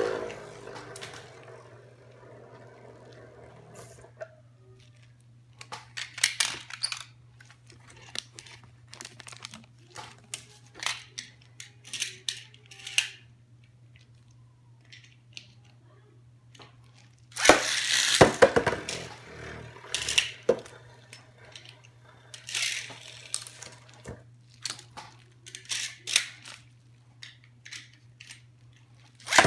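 Packaging and small plastic parts being handled: scattered crinkling, tearing and clicking, busiest about two-thirds of the way in, over a steady low hum.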